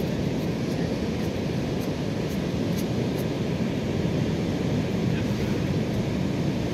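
Steady rushing beach ambience of wind and surf, with a few faint ticks scattered through it.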